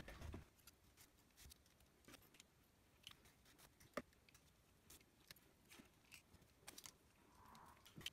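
Faint, sparse clicks and scrapes of a knife blade chipping acetone-softened plastic coating off a Roland Juno 106 voice chip, with one sharper click about four seconds in.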